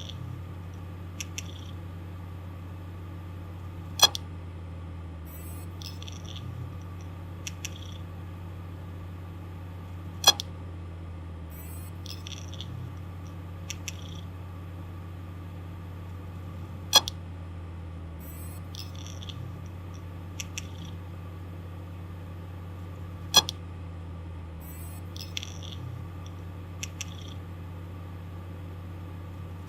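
Failing hard disk drive spinning with a steady low hum, giving a loud sharp click about every six and a half seconds with fainter double ticks in between. The repeated clicking is a sign of mechanical malfunction in the drive.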